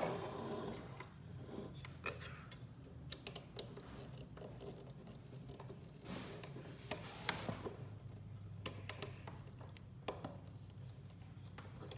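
Scattered light clicks and taps as hands handle an AMD stock CPU cooler, with a short rubbing rustle about six to seven and a half seconds in.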